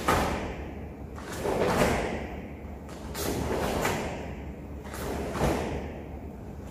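Karate gi fabric snapping and swishing with each sharp block and punch, mixed with bare feet thudding and sliding on foam mats as the kata steps from stance to stance; the sharp swishes come roughly once every second or so.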